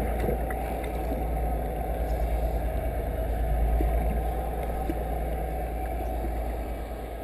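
Muffled underwater rumble of a boat's engine and propeller, with water rushing past a microphone held below the surface; steady throughout and easing slightly near the end.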